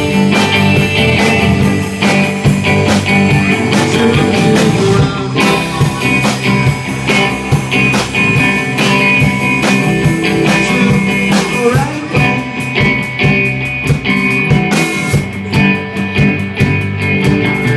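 Live rock band playing loudly: electric guitars over a drum kit, with drum hits throughout.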